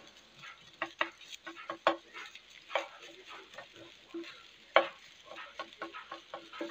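Plastic spatula scraping and knocking against a nonstick frying pan while rice, scrambled egg and diced ham are stirred together, over a faint sizzle of frying. The knocks are irregular, the loudest about three and five seconds in.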